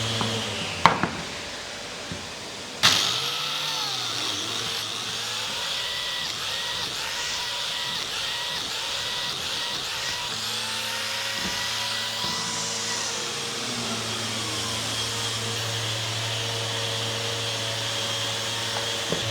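Electric sander with dust extraction starting abruptly about three seconds in and running steadily, its pitch drifting up and down as it is worked against the wood. A couple of sharp knocks come just before it starts.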